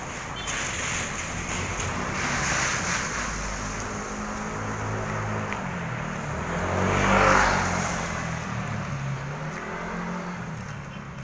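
Street traffic passing close by: engine hum and tyre noise swell and fade as vehicles go by, with the loudest pass, a motorcycle, about seven seconds in.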